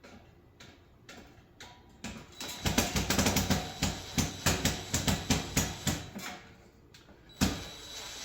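Metal teardown work on a coffee warmer: a few light clicks, then a quick run of sharp metallic knocks and rattles, several a second, for about four seconds, and one loud knock near the end.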